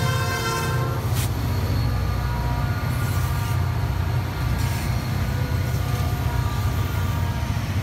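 Norfolk Southern diesel freight locomotives passing close by, their engines and wheels making a steady low rumble. The air horn's chord cuts off about a second in, followed by a sharp click, and a thin high squeal from a screaming axle runs faintly underneath.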